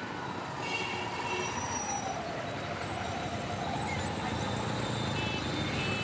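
Busy road traffic: a steady rush of engines and tyres, with short high horn toots about a second in and again near the end.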